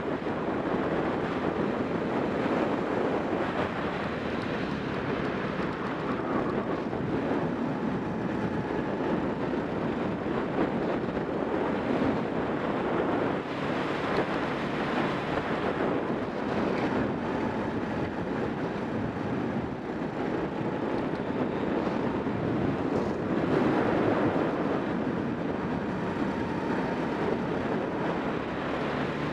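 Racing kart's engine running at speed through a lap, mixed with wind rushing over the onboard microphone. The sound is a steady, loud, noisy rush with small swells in level.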